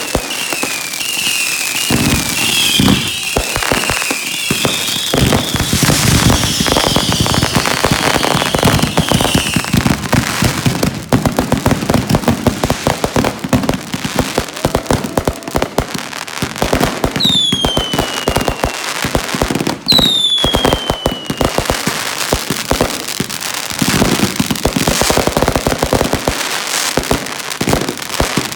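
Fireworks going off without a break: dense, rapid crackling and popping. In the first ten seconds there are many short falling whistles, and two longer whistles drop in pitch about 17 and 20 seconds in.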